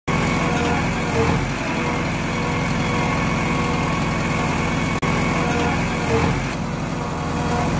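Excavator's heavy diesel engine running steadily, a low rumble with a fine even pulse, cutting out for an instant about five seconds in.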